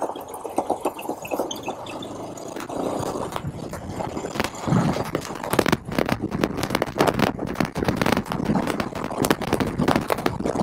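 Motorcycle riding noise: wind buffeting and crackling on the rider's camera microphone, irregular and growing busier about halfway through.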